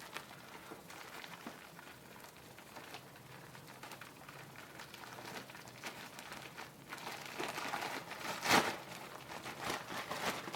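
Plastic wrapping crinkling and rustling as a pair of sneakers is unwrapped, busier in the last few seconds, with one sharp, loud crackle about eight and a half seconds in.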